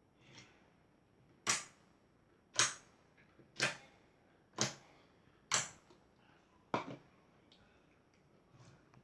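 Six sharp clicks or taps, evenly spaced about a second apart, in a small room.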